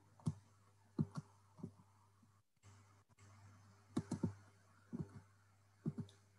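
Scattered clicks at a computer, some single and some in quick pairs, over a faint steady electrical hum that cuts out briefly about halfway through.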